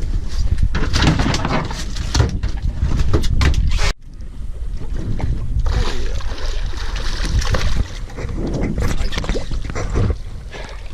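Boat-on-the-water noise aboard a fishing boat: low rumble and sloshing with wind on the microphone. It cuts off sharply about four seconds in, then picks up again.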